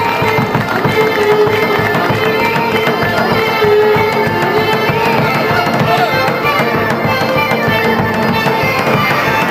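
Live Balkan folk band playing a dance tune: violins carry the melody over accordion, with beats on a large frame drum.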